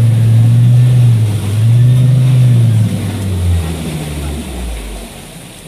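Boat motor running at low speed with a steady low drone, then throttled back about three and a half seconds in, its pitch falling as it fades away.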